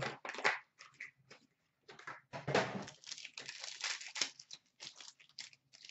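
Foil trading-card pack crinkling and tearing in irregular rustles as it is handled and slit open with a knife.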